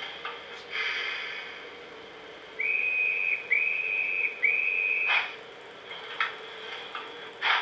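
Sound-fitted model of an LNER B1 steam locomotive giving three whistle blasts in quick succession, each just under a second at one steady pitch, about two and a half seconds in. Short bursts of hiss come before and after the whistles.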